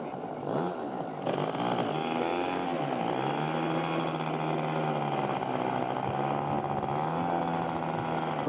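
A radio-controlled scale aerobatic model aircraft's 3W twin-cylinder engine running. Its pitch rises and falls over the first few seconds, then holds fairly steady.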